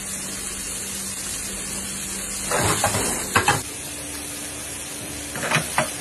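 Vegetables sizzling and frying in a hot wok, a steady hiss, with two louder bursts of noise about two and a half seconds in and again near the end.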